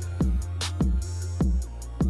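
Background music with a steady beat: a kick drum about every 0.6 seconds alternating with sharp snare or clap hits, over a steady low bass line.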